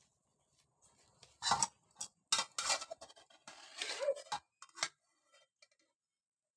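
Steel spoon scraping and knocking against a steel bowl as cauliflower florets are stirred and scooped, in a run of short bursts over about three and a half seconds. There is one brief metallic ring near the middle.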